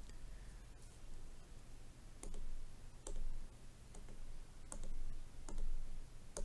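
Stylus tip tapping on a tablet's glass screen: about six separate taps, unevenly spaced, roughly a second apart.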